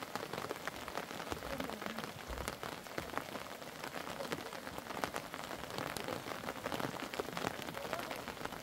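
Rain falling: a steady hiss with many separate drops ticking on nearby surfaces.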